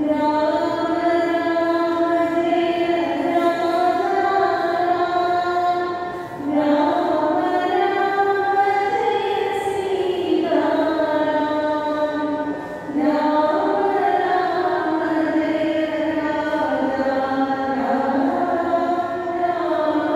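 Women singing a devotional prayer chant together, one of them into a handheld microphone, in long held phrases with short breaks about six and thirteen seconds in.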